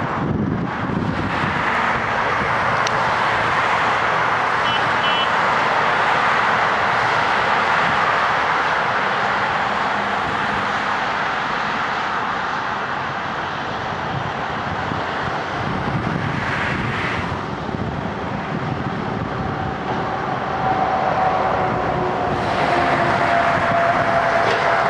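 Diesel road-building machinery at asphalt paving work running steadily: the paver, rollers and asphalt trucks. Near the end a steady whine comes in and sinks slightly in pitch.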